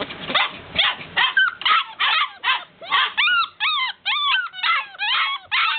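A litter of golden retriever puppies whining and yipping to be let out of their pen. The short, high-pitched cries come about three a second, rising then falling in pitch, several pups overlapping.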